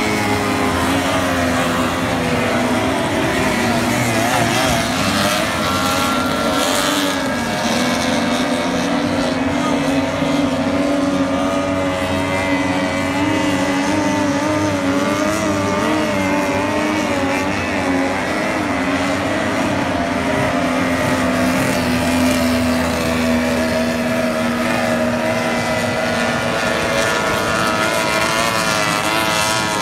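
50 hp outboard engines on tunnel hull race boats running at racing speed, several at once, their pitches wavering and shifting as the boats pass.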